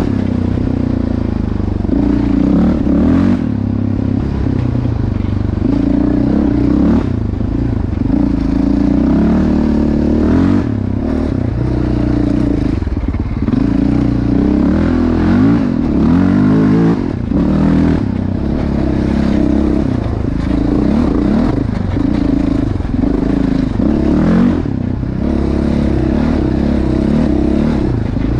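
Yamaha Raptor 700R quad's single-cylinder four-stroke engine through a Yoshimura exhaust, revving up and dropping back again and again as it is ridden.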